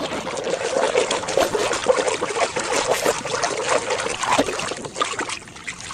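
Water running and splashing over a muddy plastic toy as it is washed clean: a steady, uneven spattering wash.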